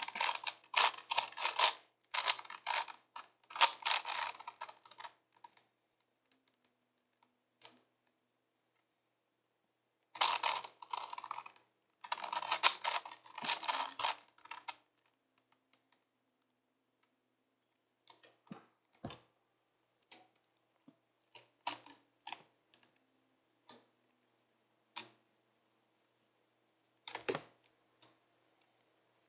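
Layers of a 5x5x5 Rubik's cube being turned by hand: bursts of rapid plastic clicking through the first five seconds and again from about ten to fifteen seconds in, then single scattered clicks.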